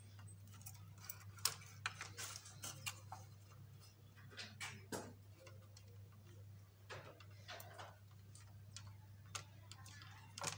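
Faint, irregular clicks and taps of small plastic parts being handled and pressed into place on a handmade model seed drill, over a steady low hum.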